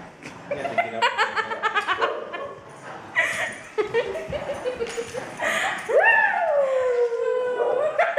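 People laughing and chuckling in short bursts, then a long drawn-out voiced sound that falls in pitch, starting about six seconds in.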